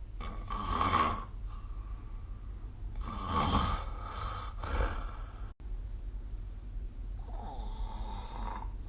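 A sleeping person snoring: three rasping snores a few seconds apart, the middle one followed by a shorter one, over a steady low hum.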